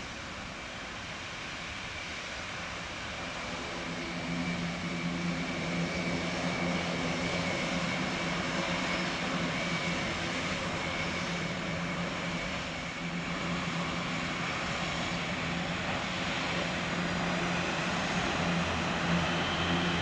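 Airbus A400M's four turboprop engines running as the aircraft taxis, a steady droning hum with a low tone, growing louder about four seconds in.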